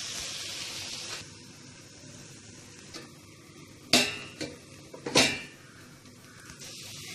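Leafy greens sizzling in a frying pan, louder for the first second and then softer, as a glass lid is set on the pan and knocks against its rim twice, about a second apart.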